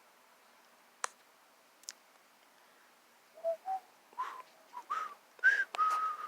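A person whistling a short run of notes that climb in pitch, ending on one longer held note. Two sharp clicks come before it, about one and two seconds in.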